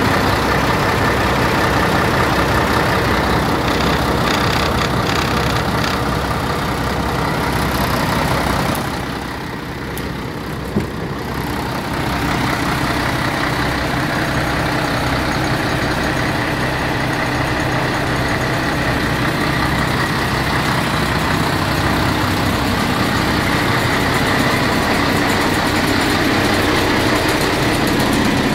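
MAN 19.403 truck's 400 hp diesel engine idling steadily, with a low, even pulse. It grows quieter for a few seconds about a third of the way through, with a single click in that stretch.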